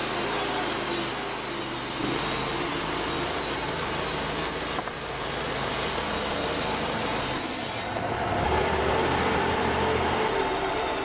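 Bandsaw sawmill cutting through a log, its engine running steady under the blade's hiss. About eight seconds in the hiss of the cut drops away, leaving the engine's lower hum.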